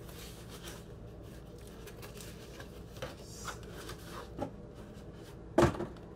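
Cardboard record mailer being opened and handled, with scattered rustles and light scrapes as a shrink-wrapped vinyl album is slid out of it, and one sharp knock about five and a half seconds in.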